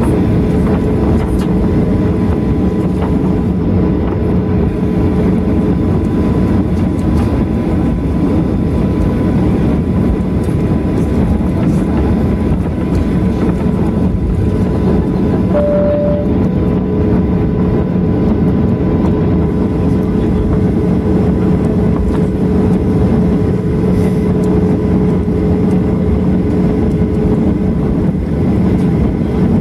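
Cabin noise of a Boeing 737-800 taxiing, heard from a window seat by the wing: a steady drone from the CFM56-7B engines near idle thrust, with a few held humming and whining tones. A short single beep sounds about sixteen seconds in.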